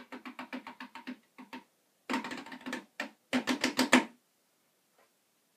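Hands drumming fast on a hollow container worn like a hat: a quick, even run of taps, a denser flurry about two seconds in, then a louder rapid run near the four-second mark.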